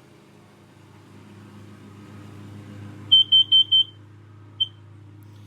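Kidde KN-COPE-D combination smoke and carbon monoxide alarm in test mode, giving four quick high-pitched beeps about three seconds in, the carbon monoxide alarm pattern, then a single beep near the end. A low steady hum lies under it.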